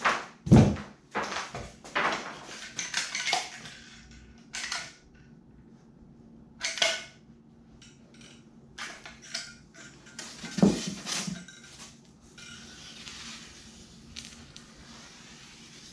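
Irregular knocks, taps and clatter of tools and materials being handled at a workbench, with a couple of heavier thuds near the start and about two-thirds of the way through.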